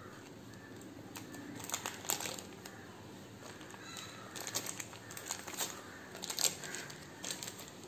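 Paper cake-tin lining crinkling and rustling as it is peeled off the sides of a freshly baked chocolate sponge, in short scattered bursts of crackle.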